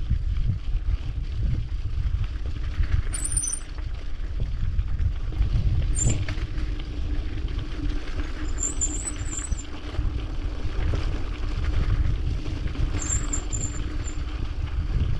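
Mountain bike rolling downhill over a gravel dirt track: a steady rumble of tyres on loose stones and wind on the body-mounted microphone. The brakes give short high-pitched squeals about four times.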